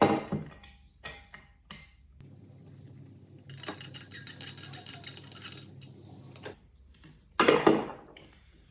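A screw being undone from a Picote foot pedal's casing and the pedal opened up: a sharp knock at the start, small metallic clicks, about four seconds of steady rattling in the middle, and a loud clatter near the end.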